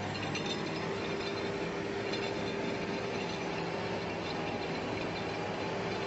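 Cable logging yarder running its skyline winch, a steady mechanical drone with a whine that sets in about half a second in and holds almost to the end.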